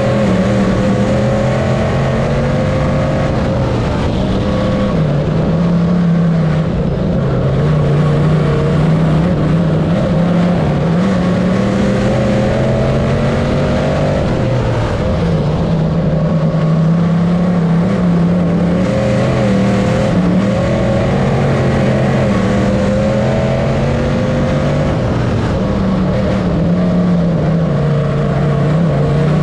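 Dirt-track modified race car's V8 engine at racing speed, heard from inside the cockpit. Its pitch climbs and drops again every several seconds as the car accelerates down the straights and lifts for the turns, lap after lap.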